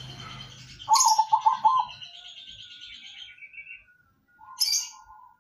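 Zebra dove (perkutut) cooing. A quick run of about four or five short coos comes about a second in, and one longer coo follows near the end.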